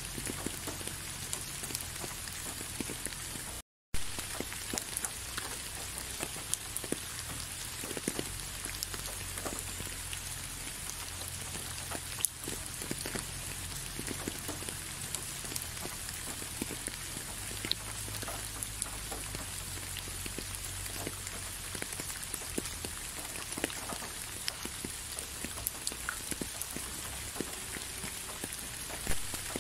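Steady rain falling, with many separate drops striking close by as small sharp ticks over the even hiss. The sound cuts out completely for a split second about four seconds in.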